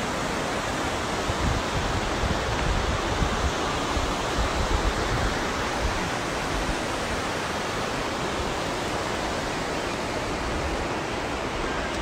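Steady rushing of a fast mountain river tumbling over rocks, with an uneven low rumble underneath.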